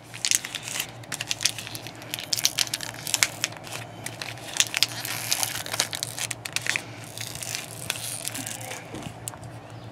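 Empty plastic water bottle being wrung tight by hand, its thin plastic crinkling and crackling in a dense run of irregular sharp cracks as the air inside is squeezed to build pressure behind the cap.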